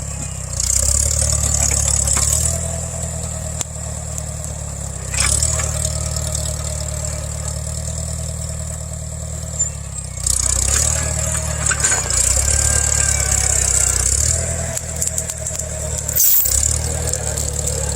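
A 1975 Farmall 140's four-cylinder gasoline engine runs under load while the tractor pulls and pushes at a stump. The engine note rises and falls several times as the load and throttle change.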